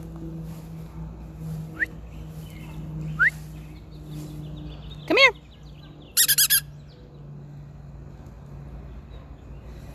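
Birds calling: two short rising chirps, then a louder call about five seconds in followed by a quick run of four sharp, high notes. A steady low hum runs underneath.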